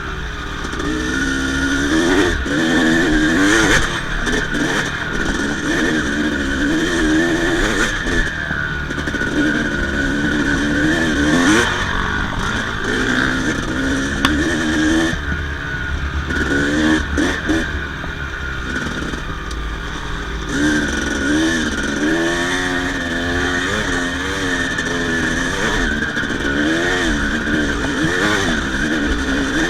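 Yamaha YZ250 single-cylinder two-stroke dirt-bike engine running, its pitch rising and falling over and over as the throttle is worked on and off.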